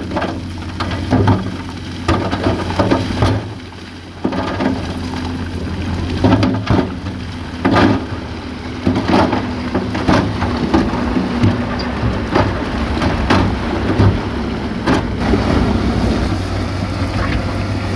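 Large stones tumbling and clattering, with many irregular sharp knocks, over the steady running of a heavy diesel machine's engine. There is a short lull a few seconds in.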